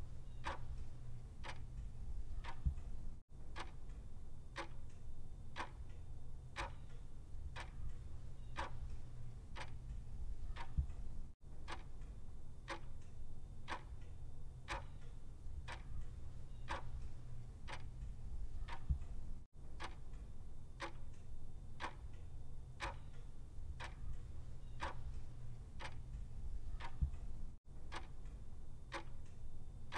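Clock ticking steadily at about two ticks a second over a low steady hum, with a brief dropout about every eight seconds.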